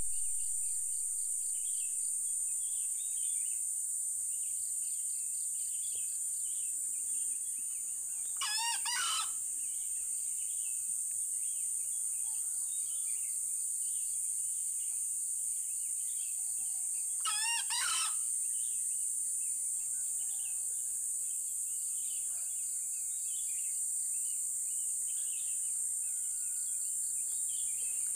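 A wild junglefowl cock crowing twice, each crow short and about nine seconds apart, over a steady high-pitched insect drone and scattered small bird chirps.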